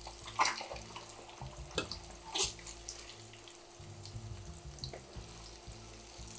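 Boiled potatoes sizzling in hot oil in a nonstick wok, with a few knocks and scrapes of a wooden spatula against the pan, about half a second in and again around two seconds in.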